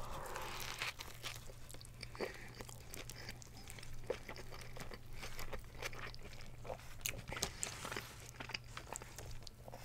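Close-miked biting into and chewing a giant Italian sub sandwich: a bite near the start, then many small crunches and wet mouth clicks. A steady low hum runs underneath.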